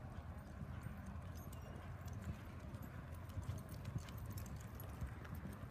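Hoofbeats of several horses walking and trotting on a dirt arena floor, uneven and overlapping, with scattered light clicks.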